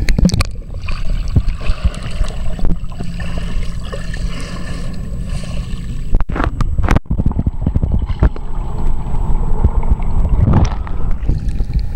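Pool water sloshing and gurgling around a camera microphone as it moves at and just below the surface, with a breaststroke swimmer splashing nearby. A couple of sharp knocks come about six and seven seconds in.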